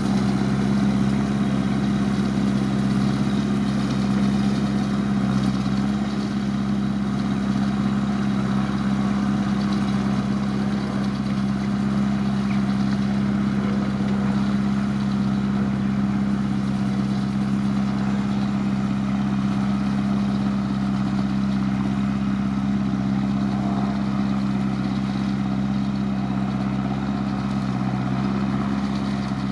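Tractor engine running steadily under load, driving a McHale F5500 round baler as it picks up and bales a windrow of hay; an even drone whose pitch holds constant throughout.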